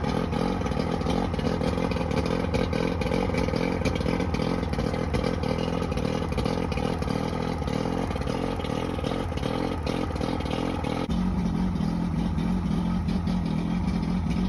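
Johnson 90 hp V4 two-stroke outboard motor running rough, misfiring on its two starboard cylinders, a fault the owner puts down to a bad power pack. Its tone changes abruptly about eleven seconds in.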